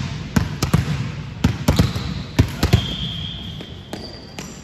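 Volleyballs being struck and bouncing on a hard court floor: a quick run of sharp thuds and slaps that thins out after about three seconds.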